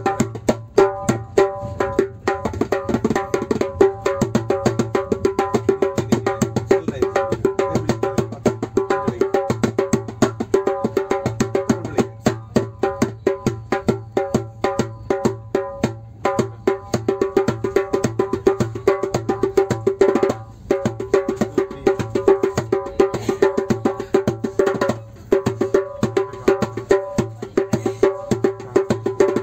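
A hand drum struck with bare hands, keeping up a fast, even rhythm of sharp slaps over a steady ringing head tone. The playing breaks off briefly a few times, then resumes at the same pace.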